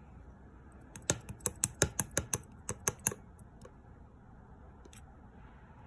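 A quick run of about a dozen sharp clicks over two seconds, then one more click near the end.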